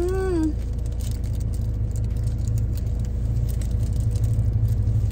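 Low steady rumble of a Toyota HiAce van's engine idling, heard from inside the cabin. It grows a little louder and more pulsing from about four seconds in. Near the start, a person gives a short rising-and-falling 'mmm' of enjoyment while chewing.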